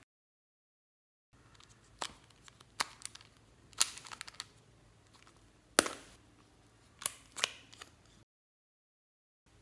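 Sharp hard-plastic clicks and snaps as the black latches of a small red Hello Kitty plastic case are unclipped and the case is pried open: about six clicks, the loudest about four and six seconds in, between stretches of dead silence at the start and near the end.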